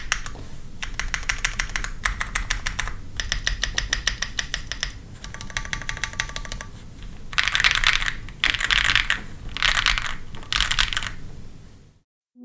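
Typing on a PC65 mechanical keyboard fitted with Yang switches and XMI keycaps: fast runs of key clicks in bursts with short pauses. The last few bursts are louder, and the typing cuts off suddenly about twelve seconds in.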